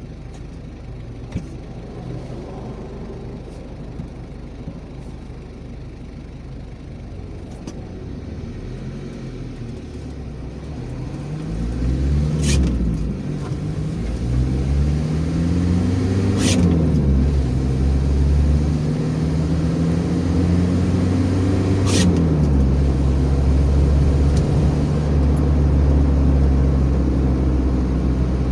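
Car engine pulling away and accelerating, getting louder about a third of the way in. Its pitch climbs and drops sharply at gear changes three times, with a short click at each change, then settles into a steady cruising drone.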